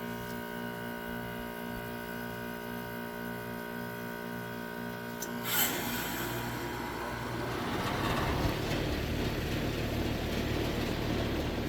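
2007 two-ton Carrier heat pump's compressor running with a steady hum during defrost. About halfway, a sudden whoosh as the reversing valve shifts back, ending the defrost cycle. A rushing noise then builds as the outdoor fan starts up.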